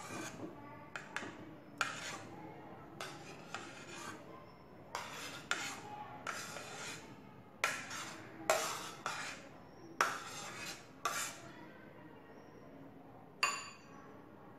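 A steel spoon scrapes and clinks against a plate and a cut-glass bowl as boiled amla (Indian gooseberry) segments are pushed off the plate into the bowl. The clicks and scrapes come irregularly, a few a second.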